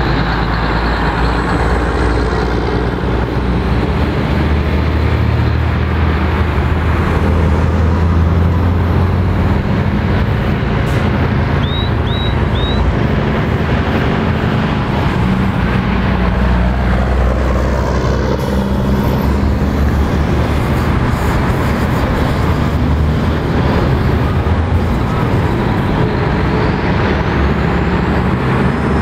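Heavy diesel lorries and cars passing close by on a main road: a loud, steady low engine drone with tyre and road noise as one truck follows another. Three quick high chirps about twelve seconds in.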